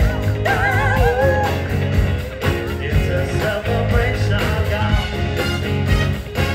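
A rock band playing a song, drums keeping a steady beat under guitar, with a singer's voice in the first second or so.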